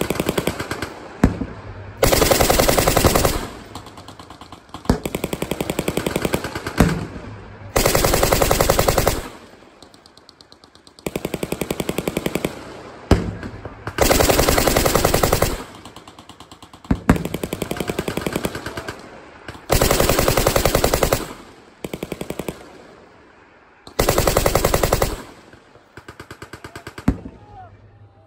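Machine guns firing long bursts overhead, one burst after another every couple of seconds, some louder and some fainter, with single sharp cracks now and then between the bursts.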